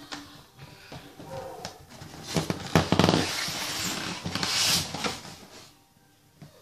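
A cardboard box sleeve being pulled off a styrofoam packaging tray, with scraping and rustling of cardboard on foam that is loudest about halfway through and again about a second later.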